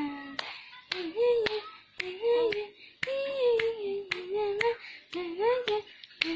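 A baby cooing and babbling in long, high, wavering notes that rise and fall, with irregular sharp hand claps between them.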